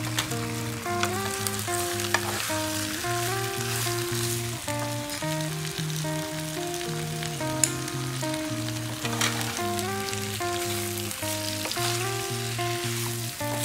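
Eggplant and okra sizzling in a frying pan as they are stirred with a wooden spatula, with scattered clicks of the spatula against the pan. Background music with a stepping melody and bass plays throughout.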